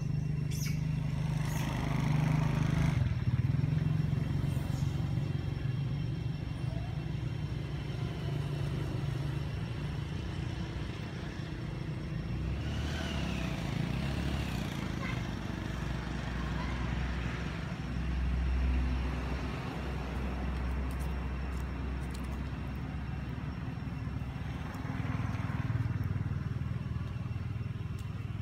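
Motor vehicle engines running in the background, a low rumble that shifts in pitch and strength as vehicles come and go, with a few brief high chirping calls about halfway through.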